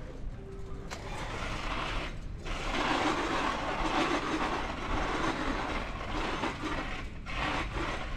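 Road bicycle riding over a rough concrete lane: tyre and drivetrain noise, louder from about two and a half seconds in, with low wind rumble on the microphone.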